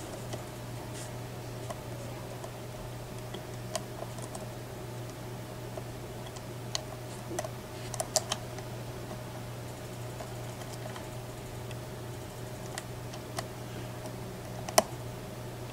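Lock pick and tension wrench working in the keyway of a Mako M2 small-format interchangeable core: scattered light metallic clicks and ticks as the pins are worked, a small cluster around the middle and the sharpest click near the end, over a steady low hum.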